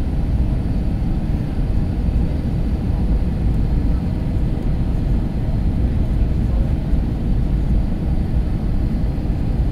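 Steady low rumble of engine and airflow noise inside an Airbus A321's cabin during its descent on approach.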